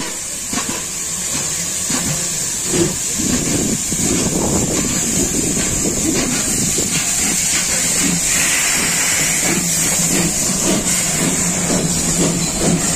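Pt47 steam locomotive standing at a platform, hissing steam steadily, with a pulsing beat underneath that becomes more regular in the second half.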